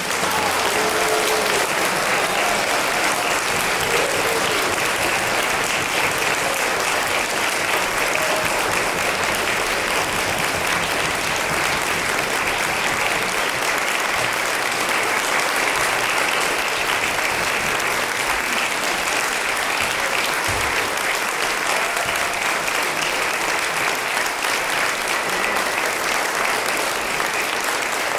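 Audience applauding steadily, a sustained round of clapping.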